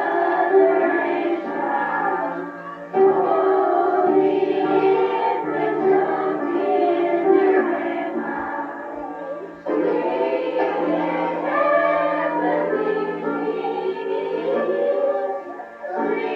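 A choir singing a hymn, phrase after phrase, with brief breaks between phrases about 3 s and 10 s in and again near the end.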